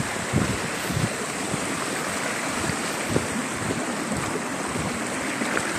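Steady rushing noise of floodwater, with wind buffeting the microphone in low gusts during the first second.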